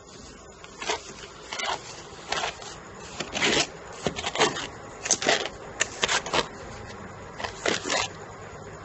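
A wooden ladle stirring and scraping dry corn grits in a stainless steel pot during roasting. It makes irregular rustling, scraping strokes about every half second to a second, which stop near the end.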